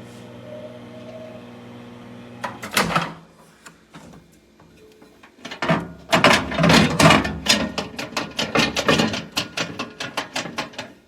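Handling noise: a steady low hum, then a loud knock about three seconds in, followed a couple of seconds later by a long run of rapid clicks, knocks and rustles.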